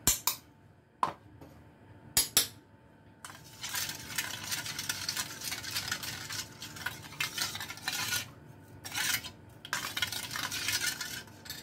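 Metal spoon stirring spiced tamarind water in a small metal bowl. A few sharp clinks of spoon on bowl come first, then about three seconds in a steady scraping stir begins and runs on with a couple of brief pauses.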